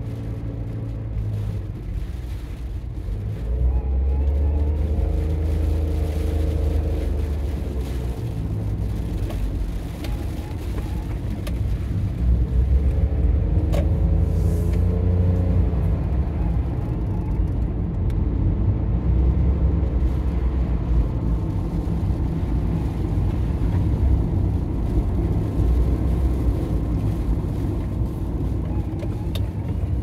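A motor vehicle's engine running, a continuous low rumble whose pitch shifts up and down now and then.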